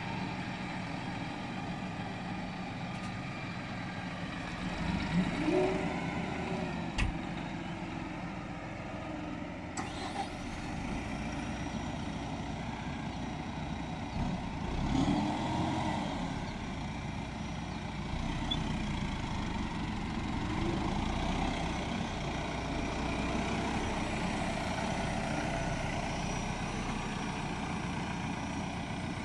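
Tractor diesel engines of a Deutz-Fahr 5080D front loader and a Landini 4-070 running steadily, the engine speed rising and falling a few times as the loader works. A single sharp click about seven seconds in.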